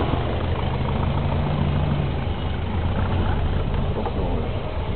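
Classic Volkswagen's air-cooled engine running steadily at low speed, heard from inside the car as it rolls along slowly; the engine note shifts slightly about two seconds in.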